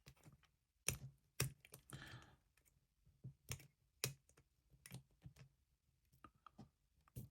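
Light clicks and taps of small parts being handled and fitted into a small FPV drone frame, at uneven intervals, with a brief rustle about two seconds in.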